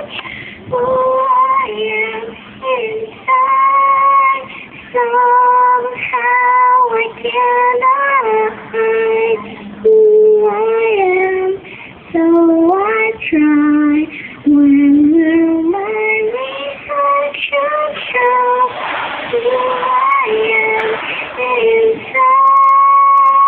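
A young girl singing a melody solo, with notes held and sliding between phrases.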